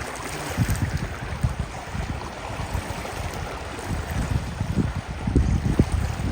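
Wind buffeting the microphone in uneven gusts, over a steady rush of river water.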